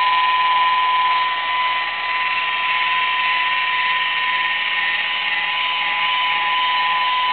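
Electric car polisher running steadily with a high, even whine, its yellow foam pad working paint sealer over the car's paint.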